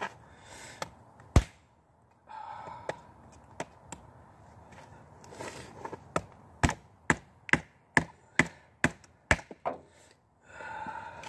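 Small fixed-blade utility knife chopping into a thin wooden stick: a few scattered strikes, then a steady run of about eight chops, roughly two a second.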